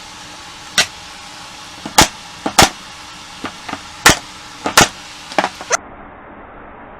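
Porter Cable pneumatic brad nailer firing brads into wood, about five sharp shots at uneven intervals, with lighter knocks between them.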